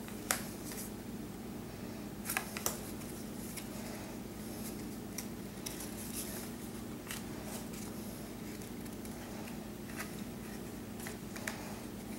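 Baseball trading cards handled and flicked through one at a time, making scattered short clicks and snaps of card stock sliding against card, over a steady low hum.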